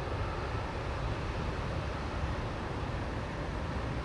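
Jet engines of an Airbus A320 climbing away after takeoff, a steady, even rumble that is heaviest in the low end.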